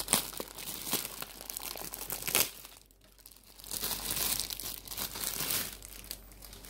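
Clear plastic packaging bag crinkling as hands pull it open and handle it. There is a sharp louder crackle right at the start and another about two and a half seconds in, then a short lull before the crinkling picks up again.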